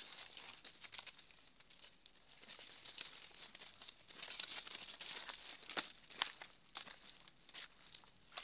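Dry fallen leaves crunching and rustling underfoot in uneven spurts, with a couple of sharper crackles a little past halfway.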